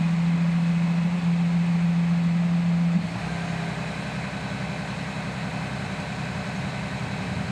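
Engine of a self-propelled potato harvester running with a strong steady low hum. About three seconds in the sound changes abruptly, dropping in level to a rougher, noisier run.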